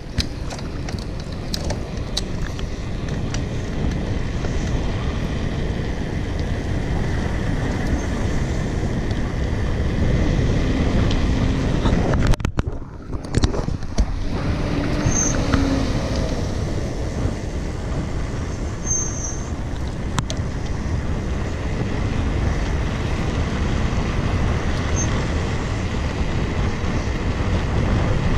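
Wind rushing over the microphone and mountain bike tyres rolling on asphalt during a fast downhill ride, a steady loud noise that dips briefly about twelve seconds in.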